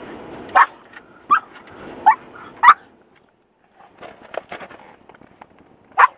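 Pug barking in short, sharp yaps at the car wash: four in quick succession over the first three seconds, then one more near the end.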